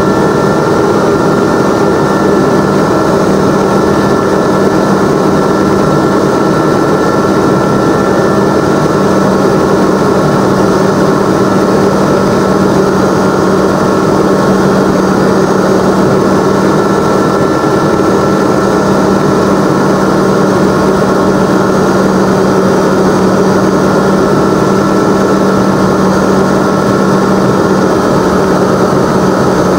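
Aeroprakt A22LS ultralight's engine and propeller running steadily in flight, heard from inside the cabin, with a constant tone and no change in power.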